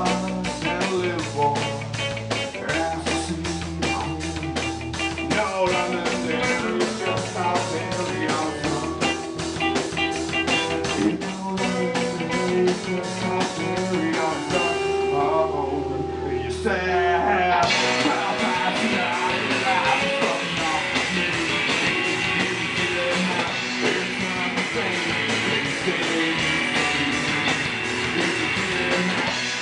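Punk rock band playing live: distorted electric guitar, bass and drum kit driving a fast, even beat. About halfway through the beat stops for a few seconds over a held note, then the full band comes back in with cymbals washing over it.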